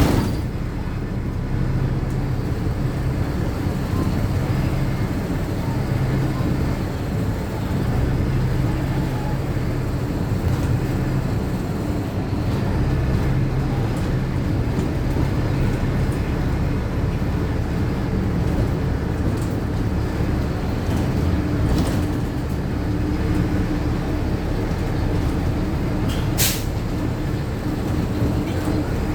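Inside a moving city bus: the engine drones steadily under road and cabin noise, with a few light rattles and clicks, and a short sharp high-pitched sound near the end.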